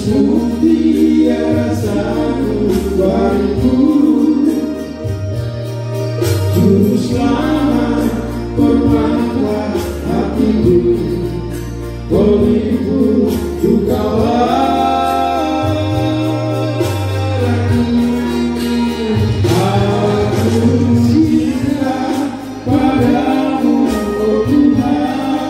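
A man singing a song into a handheld microphone, amplified, over instrumental accompaniment with a bass line that steps between held notes.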